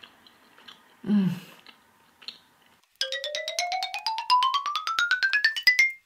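An edited-in musical transition effect: a fast run of short notes, about ten a second, climbing steadily in pitch for about three seconds and then stopping abruptly. A brief hum of a woman's voice comes about a second in.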